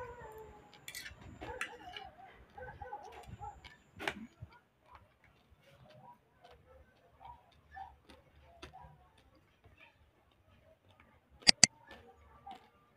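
A metal fork clicking and scraping on a plate during a meal, small irregular ticks. Near the end come two sharp, loud clicks in quick succession, the mouse-click sound of a subscribe-button animation.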